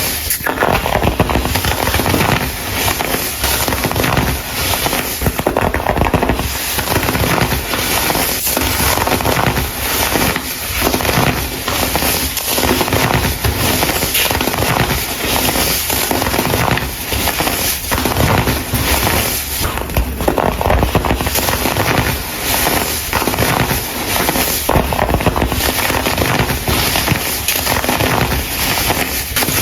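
Baking soda clumps being crumbled and crushed, a dense, continuous crunching and crackling.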